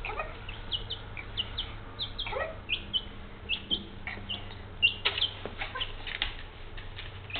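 A young chick peeping over and over, short high peeps a few times a second, with a brief louder rustle of handling about five seconds in.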